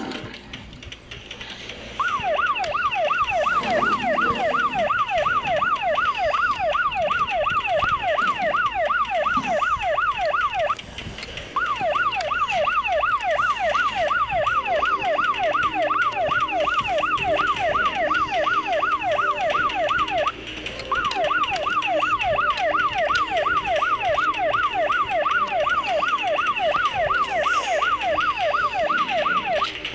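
Electronic police-style siren sounding in a fast yelp, its pitch sweeping up and down several times a second. It plays in three long runs with two brief breaks.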